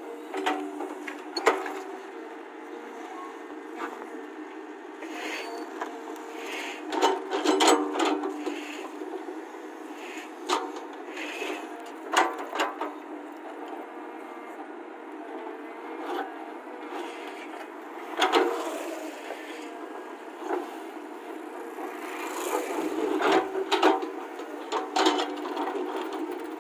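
Tracked hydraulic excavator's diesel engine running steadily under digging load while the steel bucket scrapes through earth and rock, with repeated sharp knocks and cracks as it strikes stones, several of them bunched together around a third, half, two-thirds and near the end.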